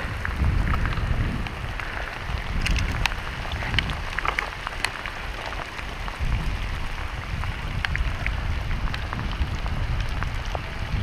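Heavy rain falling steadily on open water and wet ground, with scattered sharp ticks of single drops over a low rumble.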